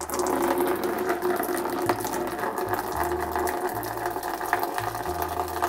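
Coolant water from a custom PC water-cooling loop draining out of the case's bottom drain port through a length of tubing and pouring in a steady stream into a plastic bucket, splashing and hissing. It starts suddenly as the drain valve is opened.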